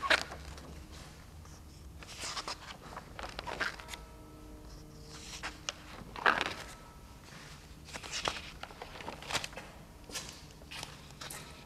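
Pages of a spiral-bound sketchbook being turned and handled: a series of irregular paper rustles and swishes, the loudest about six seconds in.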